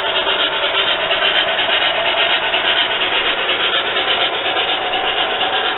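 Steam locomotive exhaust chuffing in a quick, even rhythm, played by the onboard sound system of an MTH model of Southern Pacific GS-4 4-8-4 No. 4449 as it runs.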